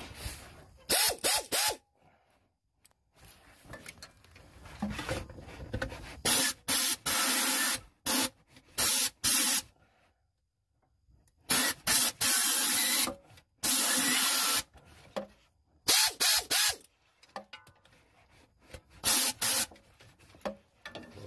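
Pneumatic air tool run in repeated short trigger bursts, each a loud hiss of exhausting air with a faint motor whine, from under half a second to about a second long, in several clusters with pauses between. It is spinning out torque converter bolts.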